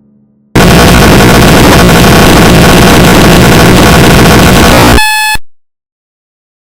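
A sudden blast of extremely loud, heavily distorted noise starts about half a second in and holds steady for roughly four and a half seconds, then turns into a brief high buzzing tone and cuts off abruptly into silence.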